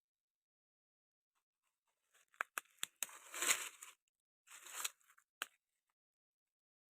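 Dry firewood being gathered by hand: a few sharp snaps of sticks followed by crunching and crackling, with a last snap near the end.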